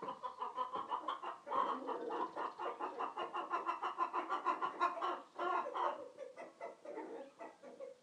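Hens clucking in a dense run of rapid clucks, thinning out after about six seconds.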